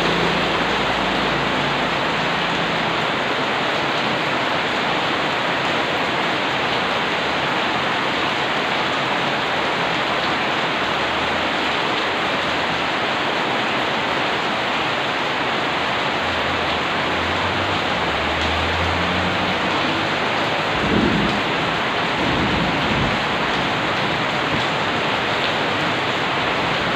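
Steady heavy rain falling on wet pavement and surfaces, an even hiss. About three-quarters of the way through, a brief low rumble with a thump rises over it.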